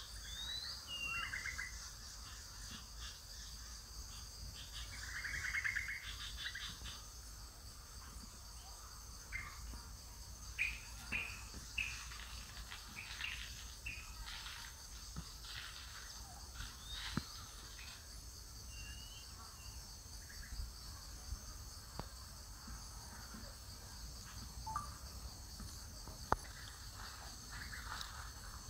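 Tropical forest ambience: a steady high insect drone with scattered bird chirps and short calls, and a few sharp clicks, the loudest near the end.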